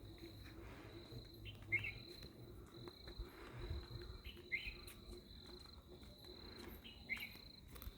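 Crickets trilling steadily, with a bird giving a short call three times, about every two and a half seconds.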